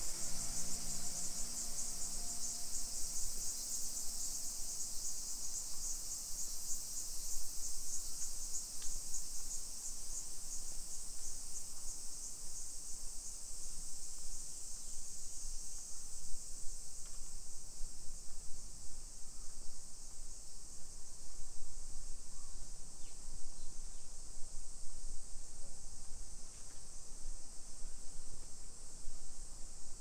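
Cicadas in summer trees: a shrill, high buzz that pulses rapidly for the first several seconds, then settles into a steadier drone that weakens somewhat in the second half.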